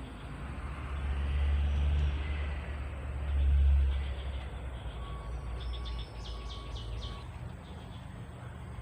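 Road traffic passing on a nearby road: a low rumble that swells twice, as one vehicle and then another goes by. A short run of bird chirps comes after the second pass.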